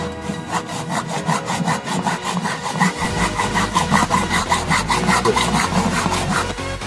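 Hacksaw cutting through cast aluminium in quick, even back-and-forth strokes.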